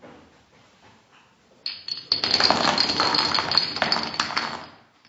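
Dominoes toppling in a tight spiral and clattering onto a vinyl tile floor: a dense run of clicks and clinks that starts about one and a half seconds in and lasts about three seconds.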